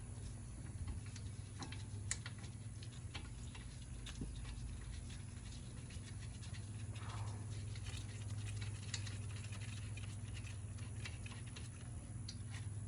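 Faint, scattered light clicks and taps of hand tools and brake parts being handled, over a low steady hum.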